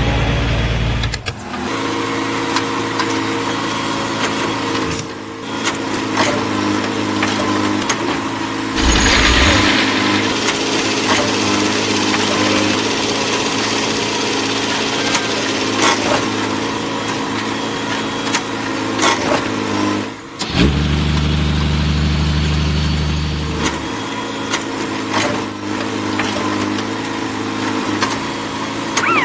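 Engine running steadily, with a deeper rumble near the start and again in a stretch about two-thirds of the way through, and scattered clicks and knocks throughout.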